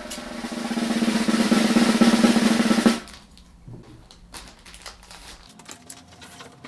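Scissors cutting open a plastic table tennis rubber packet: one continuous cut of rapid crackling lasting about three seconds. After it come quieter crinkles and clicks of the plastic as the packet is opened and handled.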